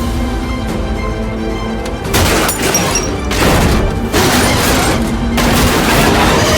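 Background music with loud, noisy crash-and-explosion sound effects laid over it, three bursts: about two seconds in, around four seconds in, and near the end.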